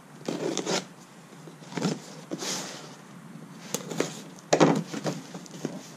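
A folding knife cutting the packing tape on a cardboard box and the flaps being pulled open: several short scraping rips, the loudest about four and a half seconds in.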